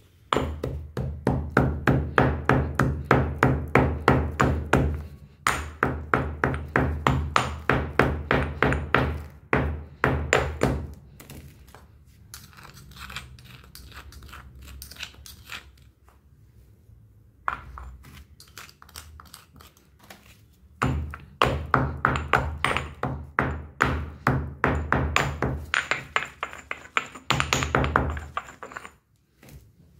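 Stone pestle pounding dry powder in a stone mortar, steady thuds about four a second, with a brief pause about five seconds in. In a quieter middle stretch a metal spoon scrapes and taps the powder around inside the mortar, then the pounding starts again and stops shortly before the end.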